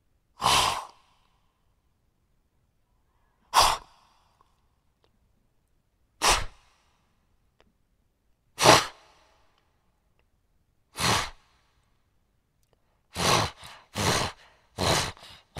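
Animal snorting, a sharp blow of air through the nostrils: five single snorts a couple of seconds apart, then a quick run of about six short snorts near the end.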